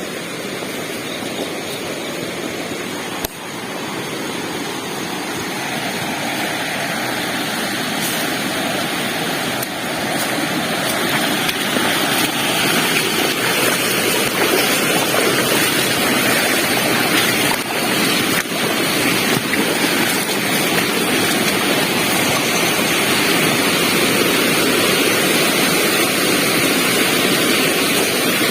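Steady rush of water from a waterfall, growing gradually louder.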